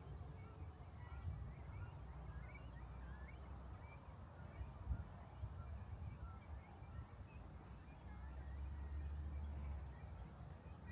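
Small birds chirping faintly and often, over a low outdoor rumble that swells for a couple of seconds near the end.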